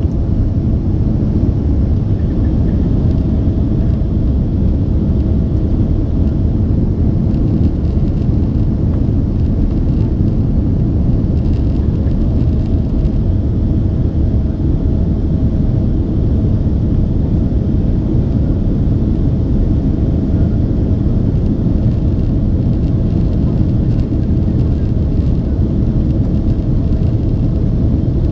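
Cabin noise inside a Boeing 767-400ER under way: a loud, steady rumble of jet engines and airflow, with a faint steady hum above it.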